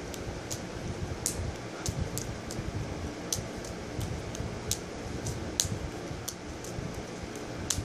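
Irregular light slaps of balls being caught in the hands while juggling, a few each second, over a steady fan noise.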